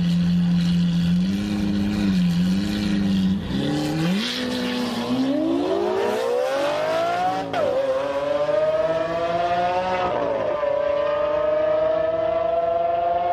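A drag-racing car's engine held at steady, slightly wavering revs on the start line, then launching about three and a half seconds in and accelerating with its pitch climbing. The pitch drops back at gear changes about seven and a half and ten seconds in.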